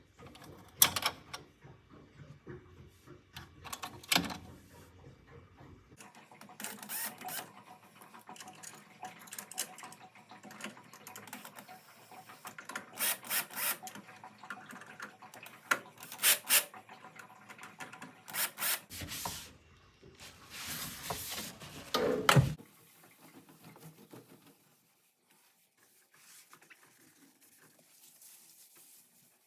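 Intermittent knocks, clicks and scraping from household items being handled and cleaned, with a sharp knock about a second in and a longer, louder stretch of scraping and clatter near the middle. It turns much quieter for the last few seconds.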